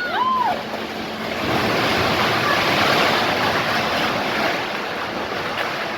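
Heavy stormy rain driven by wind, a gust swelling about a second and a half in and easing off toward the end.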